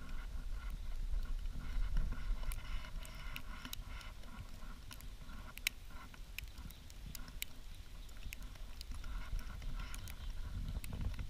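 Storm wind buffeting the microphone as a low rumble, with scattered light ticks and clicks over it.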